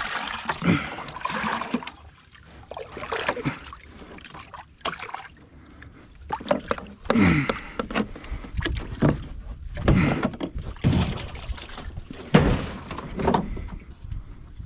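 Small flat-bottom boat being paddled across the water: irregular paddle strokes and splashes with knocks against the hull, coming about once a second in the second half.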